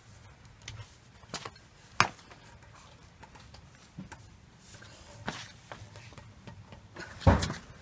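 Sparse metallic clicks and clinks of a four-way cross lug wrench working on a wheel's lug nuts as they are loosened, with a louder clank near the end.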